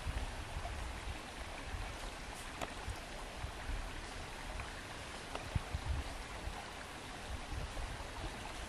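Shallow stream running over stones: a steady rush of water, with occasional low rumbles.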